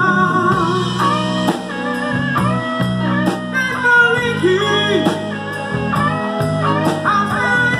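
Live rock band playing a slow rock ballad, with a lead electric guitar line bending over bass and drums, and a man singing into a microphone.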